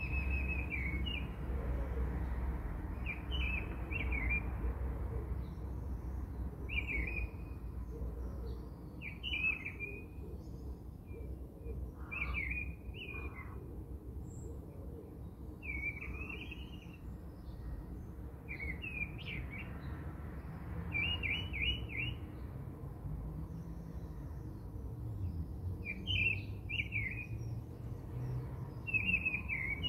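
Small birds chirping: short, bright chirps repeating every second or two, over a low steady hum.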